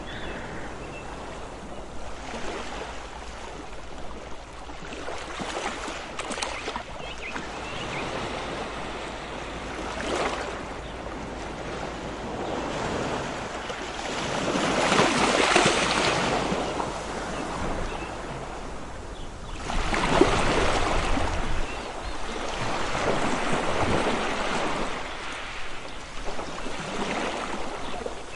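Ocean waves breaking in several slow surges of surf that swell and fade, the loudest about halfway through.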